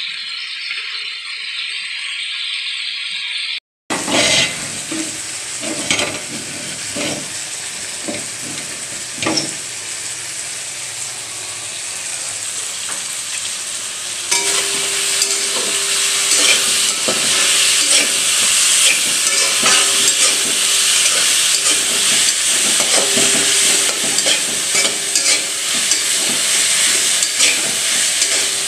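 Vegetables sizzling in a hot metal wok while a spatula stirs them, clicking and scraping against the pan. There is a short dropout about four seconds in, and the sizzle gets louder about halfway through.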